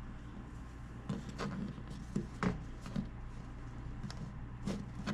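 Razor blade cutting through the glue seal around a subwoofer driver in a wooden enclosure: scattered short scrapes and light taps.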